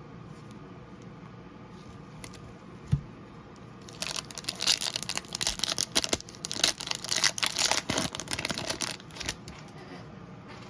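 A trading card pack's foil wrapper being torn open and crinkled: about five seconds of crackling, starting about four seconds in. A single knock comes about three seconds in.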